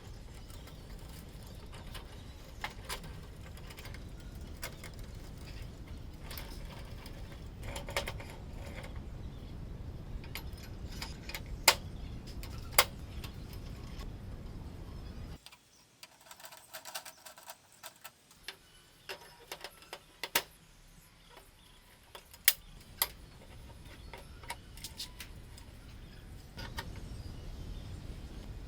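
Workshop handling noise from small metal tools and parts: scattered sharp clicks and knocks over a low steady rumble. The rumble drops out abruptly about halfway through and comes back near the end.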